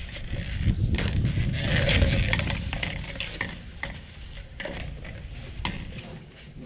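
Black corrugated plastic drain pipe being uncoiled and handled, its ribbed walls scraping and clicking. The rattling is densest in the first few seconds and then tapers off.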